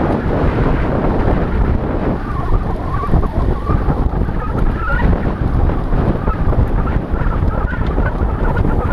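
Loud, steady wind rumble on a helmet-mounted GoPro in an open skeleton housing while cycling at race speed, with faint wavering higher tones over it.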